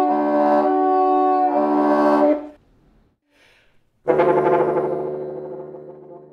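French horn and bassoon playing a duet in sustained notes. The low notes break off and come back twice, then both instruments stop about two and a half seconds in. After a short pause a loud chord comes in and slowly fades away.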